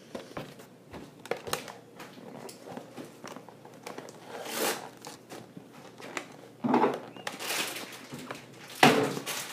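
Monster High doll box of cardboard and clear plastic being handled and worked open, crinkling and rustling with irregular small clicks. Louder crackles come a few times, the loudest near the end.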